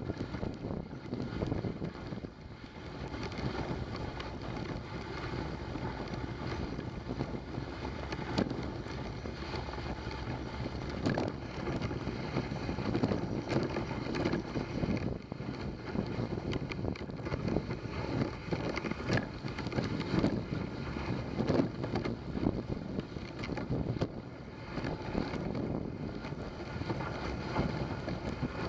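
Dog sled travelling along a snowy trail: a steady scraping hiss of the runners on snow, with many small crunches, and wind buffeting the microphone.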